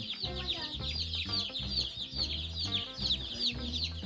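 Dozens of day-old chicks peeping nonstop, a dense chorus of short, high, falling chirps, over background music with a steady bass line.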